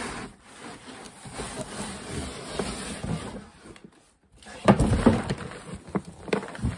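Cardboard scraping and rubbing as a cardboard gift box is worked up out of a large corrugated shipping carton, then a few sharp knocks of the boxes bumping near the end.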